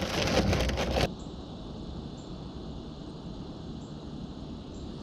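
Loud rustling noise on the microphone for about a second, cutting off abruptly, then a faint steady outdoor hiss with a few faint high ticks.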